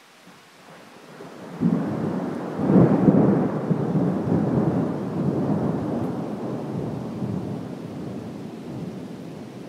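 A peal of thunder: a low rumble builds for about a second, breaks sharply near two seconds in, is loudest about three seconds in, then rolls away slowly and is still fading at the end.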